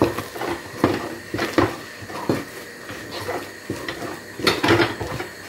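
Wooden spoon stirring and mashing thick ugali (stiff maize-flour dough) in a pot, with irregular knocks and scrapes of the spoon against the pot.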